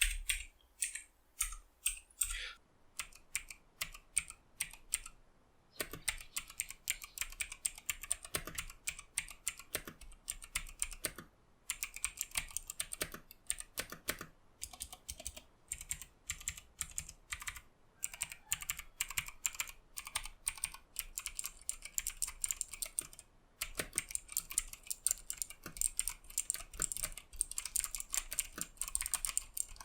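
Typing on a Machenike K7 mechanical keyboard: a clicky run of keystrokes, scattered for the first few seconds, then fast and steady with a few brief pauses.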